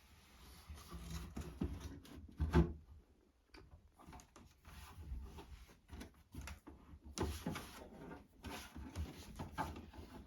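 Handling sounds as the parts of a Macintosh Plus computer are fitted back together: irregular scraping, rubbing and knocking of plastic and metal, with the loudest knock about two and a half seconds in and another near seven seconds.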